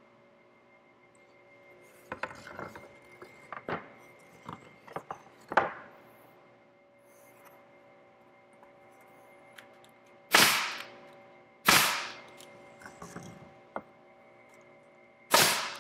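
Pneumatic nail gun firing three times, driving nails into the glued corners of a pine stretcher frame. Two shots come about a second and a half apart, and a third follows about three and a half seconds later. Before them there are light knocks of the wooden strips being handled and lined up.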